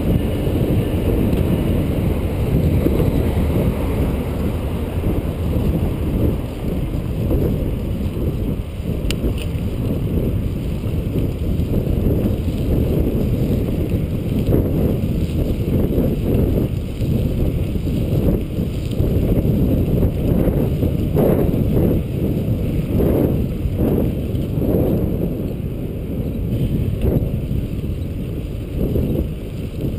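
Wind buffeting the microphone of a camera on a moving bicycle: a steady low rumble that keeps swelling and easing.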